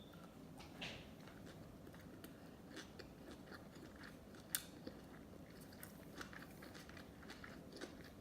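Close-miked chewing of sushi: a run of many small, faint mouth clicks, with one sharper click about four and a half seconds in.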